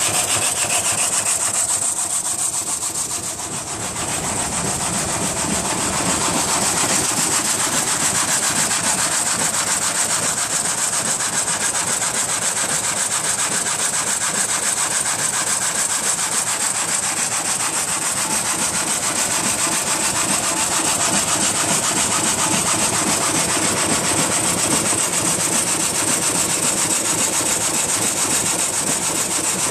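Historic 1947 horizontal frame saw cutting a log, its single reciprocating blade rasping steadily through the wood with the machine running. Briefly a little quieter about three seconds in.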